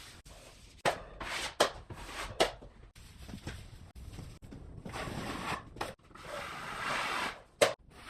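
Hand work on drywall: irregular scraping and rubbing strokes of a tool across the wall surface, some short and sharp, some drawn out for a second or so.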